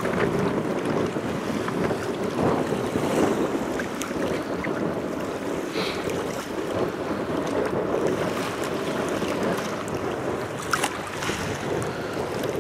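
Wind and choppy waves on open water, with wind buffeting the microphone: a steady rushing noise as whitecaps start to build.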